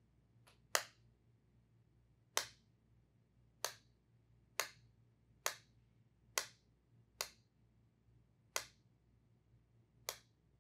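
Two plastic markers tapped together at the open end of a tube: about nine sharp clacks roughly a second apart, each with a brief ringing tail. Each clack is a sound pulse sent down the tube so that a sound sensor can time its echo from the closed end.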